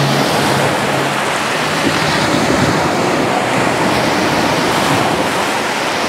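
Black Sea surf: small waves breaking and washing up over the sand at the water's edge, a steady, dense rush of water.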